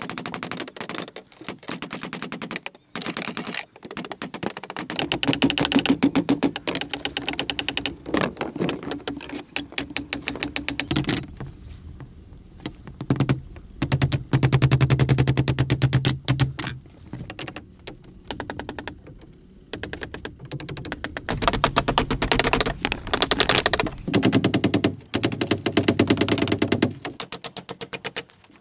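Hammer driving nails into bamboo strips and a wooden block, the strikes coming in fast runs of many per second with short pauses between.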